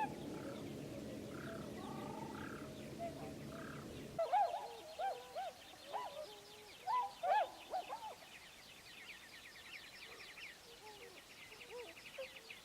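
Wild birds calling: a mix of short rising-and-falling calls and a long, fast, high trill. For the first four seconds a steady low rumble lies under them, then it cuts off abruptly.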